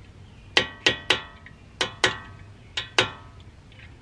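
Hammer tapping a metal punch to drive the pad retaining pin out of a Honda Civic Type R's Brembo brake caliper: seven sharp metallic taps, mostly in pairs, each ringing briefly.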